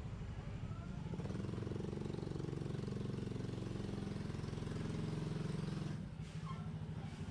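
Honda XRM 110's single-cylinder four-stroke engine running at low speed, picking up slightly about a second in, then dropping back to idle about six seconds in.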